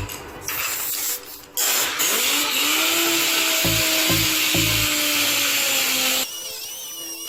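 Background hip-hop music with a steady beat and bass line. About a second and a half in, a loud steady hiss joins it for nearly five seconds and then cuts off suddenly.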